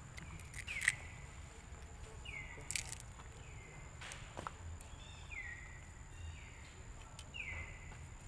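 Outdoor ambience: short high chirps that fall in pitch, repeated every second or two, over a faint steady high whine and a low rumble. A few sharp clicks come through, the loudest about a second in.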